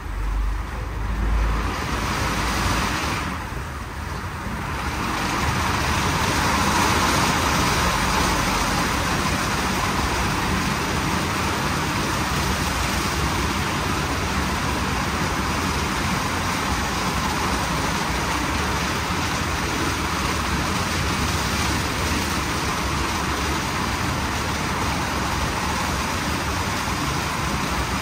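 WashTec SoftCare² Takt rollover car wash running: a loud, steady rushing noise. A low rumble in the first two seconds and a brief lull about four seconds in give way to an even, continuous rush for the rest.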